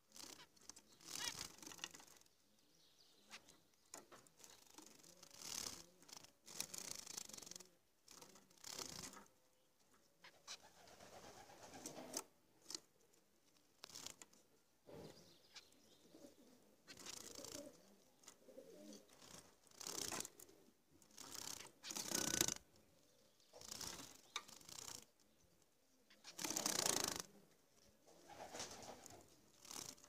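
Zebra finches calling in a cage: irregular short bursts of nasal, buzzy calls with quiet gaps between them.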